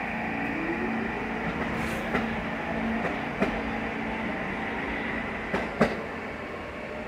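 R46 subway train pulling out of the station and moving away: a steady rumble with a whine rising in pitch early on as it accelerates, and irregular sharp clacks of wheels over rail joints, the loudest about six seconds in, fading as it leaves.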